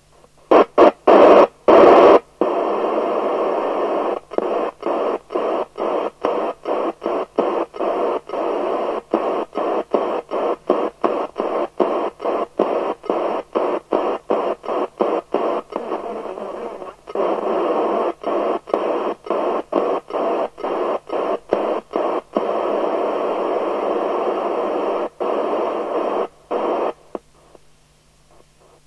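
FM CB radio receiver hiss from the 1981 Binatone Breakerphone's speaker, chopped on and off by many brief drop-outs, two or three a second, with some longer unbroken stretches of hiss. The loudest bursts come in the first two seconds.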